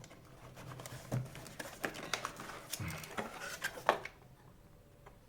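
Packaging being handled and opened by hand: irregular light clicks, taps and rustles of plastic and cardboard, dying down about four seconds in.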